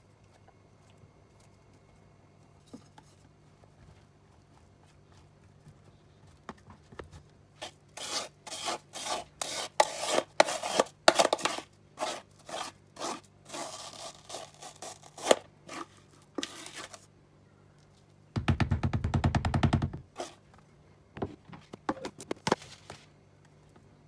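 Metal spoon scraping sauce paste from the bottom of a dish in a run of quick, short strokes. This is followed by a brief fast rattle and a few light clicks near the end.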